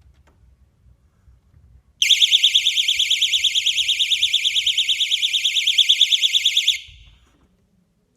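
Electronic security alarm sounding a loud, high-pitched tone that pulses rapidly, about eight times a second. It starts about two seconds in and cuts off about a second before the end.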